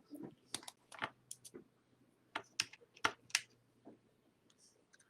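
About a dozen irregular, light clicks and taps of small hard objects being handled, over a faint steady low hum.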